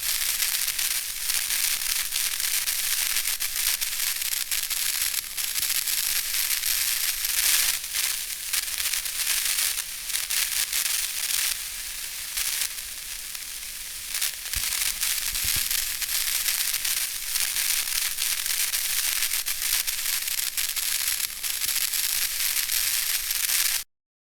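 Electric static sound effect: a continuous crackling hiss, mostly high-pitched and thick with tiny pops. It eases off a little for a few seconds about halfway, then cuts off abruptly just before the end.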